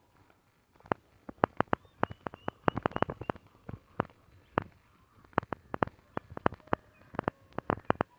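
Irregular sharp clicks and taps, several a second in uneven clusters, from someone walking along a dry dirt farm path strewn with twigs and palm fronds while holding the camera. Faint short bird calls sound behind them.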